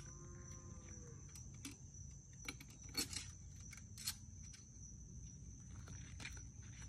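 Faint metallic clicks and clinks of a child's bicycle front-wheel hardware being fitted at the fork, with two sharper clicks about three and four seconds in. A steady high insect drone runs underneath.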